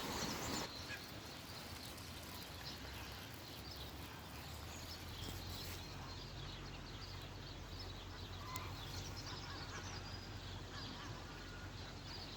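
Waterfowl honking like geese over a steady hiss of outdoor noise.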